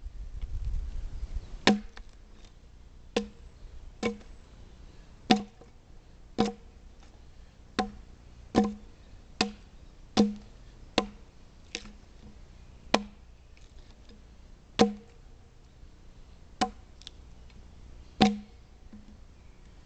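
Axe chopping into a soft white poplar log, about sixteen sharp knocks roughly a second apart with a few longer pauses: hewing the log square into a beam by hand.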